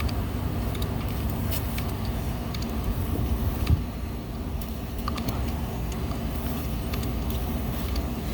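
Steady low hum of running HVAC machinery, with a few light clicks.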